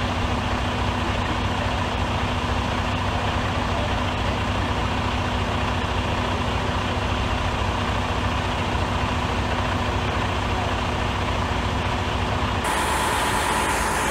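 Diesel engine of a Freightliner semi truck idling steadily beside the dead truck, ready to jump-start it.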